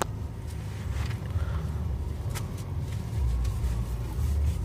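Low, steady rumble of a car's engine and road noise heard from inside the cabin, with a few faint clicks.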